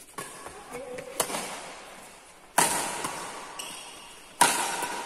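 Badminton rackets hitting the shuttlecock back and forth in a rally: sharp smacks about one and a half to two seconds apart, the last two loudest, each trailing off in the echo of a large hall.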